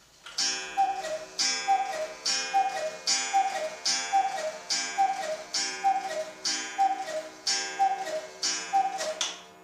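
Eight-day Black Forest cuckoo clock (Kammerer/Hekas KA 3727/8 EX) striking the hour: the bellows-blown two-note cuckoo call, a higher note falling to a lower one, repeats about a dozen times at an even pace. Each call comes with a breathy puff of air and sustained ringing tones.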